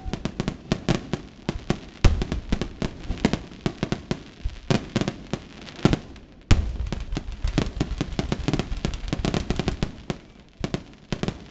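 Aerial fireworks display: a rapid run of sharp bangs and crackles, several a second, with heavier booms about two seconds in and again just past the middle.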